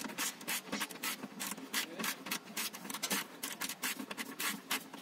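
Rapid, irregular clicks and scratches of hands handling parts inside a car door during a power window mechanism replacement.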